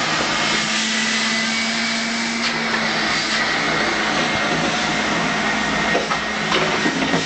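A steady whirring, motor-like noise with a constant hum, with a few light knocks near the end.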